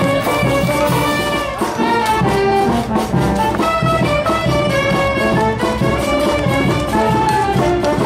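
Brass band music: trumpets and trombones playing a melody of held notes over a steady beat.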